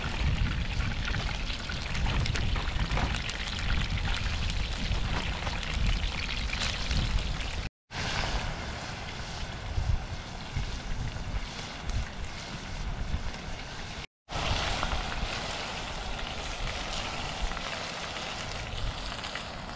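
Fries deep-frying in a saucepan of very hot oil and fish fillets frying in a skillet, bubbling and sizzling steadily, with wind rumbling on the microphone. The sound drops out briefly twice, about 8 and 14 seconds in.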